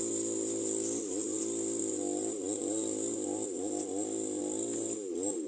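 A small engine running, its pitch wavering up and down several times, over a steady high-pitched hiss.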